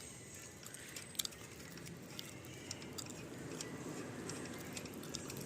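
Faint, scattered clicks and light taps, like small metal parts and tools being handled, over a steady low background hum.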